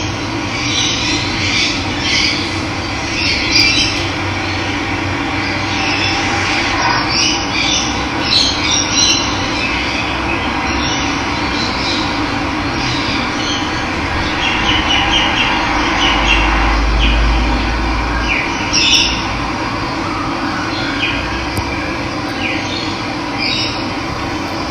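Steady rush of running water with wild birds chirping and calling over it. A brief low rumble comes in about sixteen seconds in.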